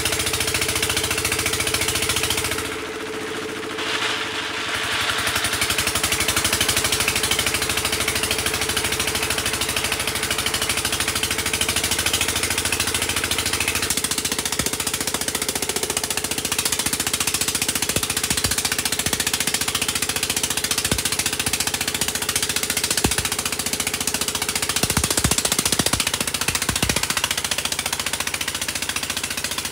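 Engine of a water-well drilling rig running steadily, dipping briefly a few seconds in. From about halfway on, scattered sharp knocks sound over it, several in quick succession near the end.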